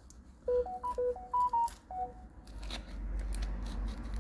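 A short electronic melody of beeps: about ten quick notes stepping up and down over roughly a second and a half. Faint scraping and clicking follow.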